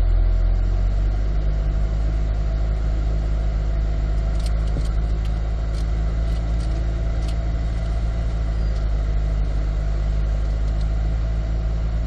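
C8 Corvette's 6.2-litre V8 idling while the car creeps along in first gear at walking pace, a steady low rumble heard from inside the cabin. A few faint ticks come about halfway through.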